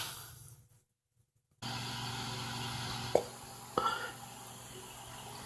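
The tail of a loud burp fading out, then after a brief dead silence a steady faint hiss with two small clicks.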